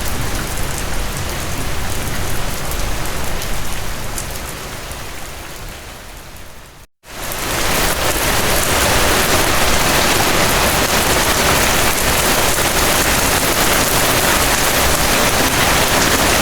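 Steady rain falling on a surface, with single drops ticking through it. It fades away to silence about seven seconds in, then comes back louder and denser.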